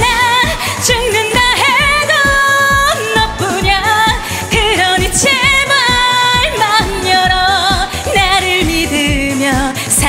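Woman singing live into a handheld microphone, wordless held notes with wide vibrato, over a dance-pop backing track with a steady beat.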